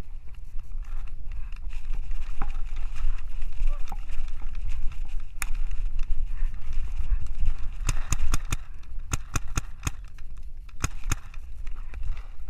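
Paintball markers firing: a few single sharp pops, then quick strings of shots about eight, nine and eleven seconds in. Under them runs a steady low rumble of wind on the action camera's microphone.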